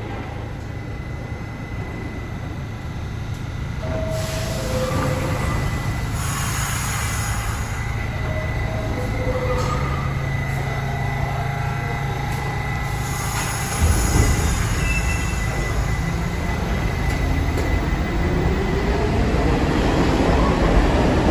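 R68 subway train in the station pulling out: a steady low rumble that grows louder about two-thirds of the way through, a few short squeals, and a rising motor whine near the end as it picks up speed.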